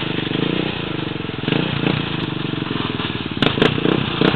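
An off-road vehicle's engine running with an even firing pulse, its pitch wavering a little. A few sharp clicks or knocks come near the end.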